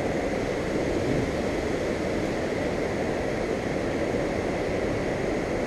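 Steady rush of river water spilling over a low-head dam: an even, unbroken noise, heaviest in the low range.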